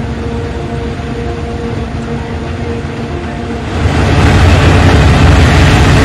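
Swaraj 8100 EX combine harvester running as it cuts rice: a steady engine-and-machinery drone that turns abruptly much louder and rougher about four seconds in.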